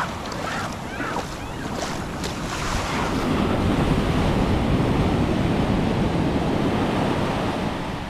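Atlantic ocean surf: waves breaking and foam washing up over the sand, growing louder from about three seconds in.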